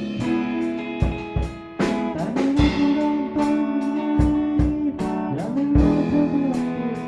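A band playing: guitar over drums, with regular drum hits and long held notes that slide in pitch.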